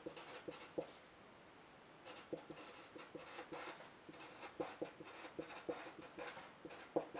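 Felt-tip marker writing on paper, a quick run of short scratching strokes as letters are drawn one after another, with a pause of about a second near the start.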